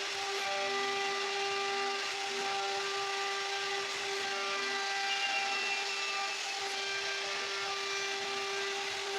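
CNC router spindle running at a steady high speed, a constant whine over the hiss of the bit cutting wood.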